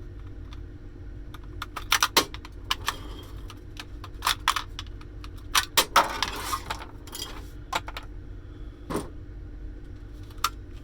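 Scattered clicks, knocks and rattles of plastic and metal parts being pried and handled while an electronic cash register is taken apart, with a brief scrape just after six seconds in, over a steady low hum.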